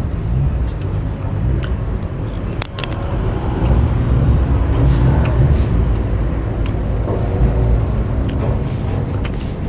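Steady low rumble of road traffic, with a few short hissy slurps of noodle soup about halfway through and again near the end.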